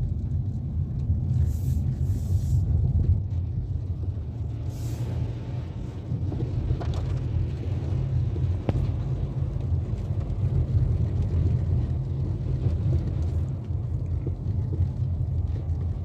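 Steady low rumble of a Dacia Duster's engine and tyres on a wet road, heard from inside the cabin while driving.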